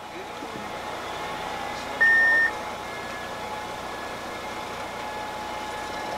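Fire truck idling at a standstill, a steady engine hum with faint constant whining tones. About two seconds in comes one loud, high beep lasting about half a second.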